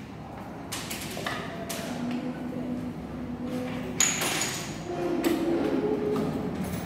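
Small knocks and clicks of nail art tools being handled on a desk, with a sharp clink that rings briefly about four seconds in.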